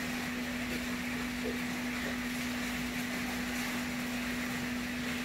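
Steady room tone: a constant low hum with an even hiss behind it, unchanging and without distinct events.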